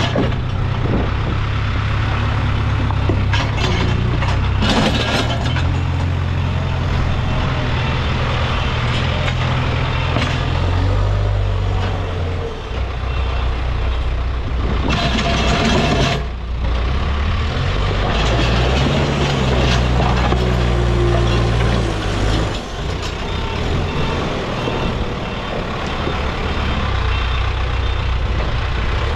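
Case backhoe loader's diesel engine running under load, its pitch rising and falling as it works, with two short rushes of noise along the way.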